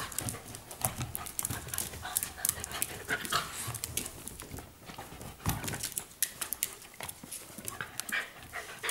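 Two dogs play-fighting, with scuffling and many quick, irregular clicks of claws on a tile floor.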